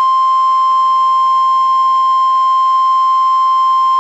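NOAA Weather Radio 1050 Hz warning alarm tone: one loud, steady, unbroken tone, sent to set off receivers ahead of a severe weather warning message.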